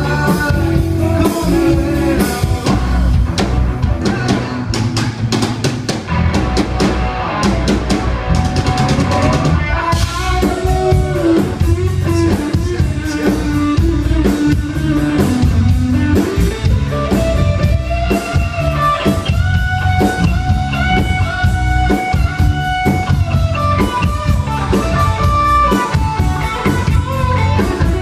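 Live rock band playing: drum kit and electric guitars, with a man singing lead into a microphone.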